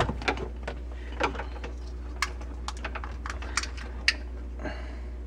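Light, irregular clicks and taps of stiff 1/4-inch plastic tubing knocking against the filter manifold and cabinet as it is worked into place by hand, a dozen or so, with the sharpest about four seconds in, over a steady low hum.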